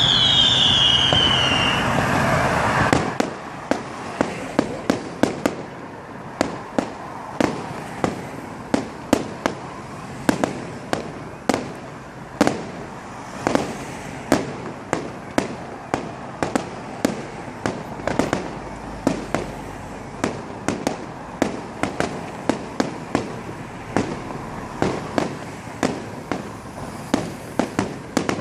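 Fireworks going off: a long, irregular string of sharp bangs and cracks, about two or three a second. It opens with a falling whistle over louder steady noise with a low hum, which stops about three seconds in.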